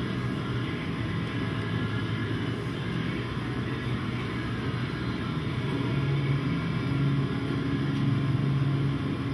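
The 1954 Buick Roadmaster's 322 Nailhead V8 running steadily with a low even hum. The hum steps up slightly in pitch and loudness about six seconds in. The engine is newly restored and only just got running.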